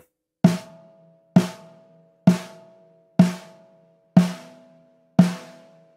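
Snare drum struck six times, about once a second, with its snare wires loosened: each hit rings and decays with a buzzing snare sizzle. The wires are a little too loose.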